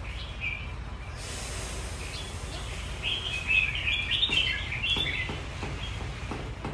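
Caged red-whiskered bulbuls singing: a short call about half a second in, then a burst of rapid chirpy warbling about three seconds in that lasts roughly two seconds. A steady low rumble runs underneath.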